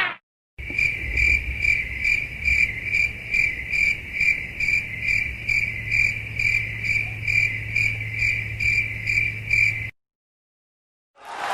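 Cricket chirping sound effect: one even, high chirp repeated about two and a half times a second, over a low steady hum. It starts about half a second in and cuts off abruptly near the end.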